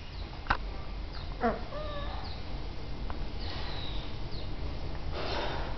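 Cavalier King Charles spaniel puppy giving a few faint, short whines with a wavering pitch, about one and a half to two seconds in, after a soft click. Later comes a soft noisy patch as it mouths a hand.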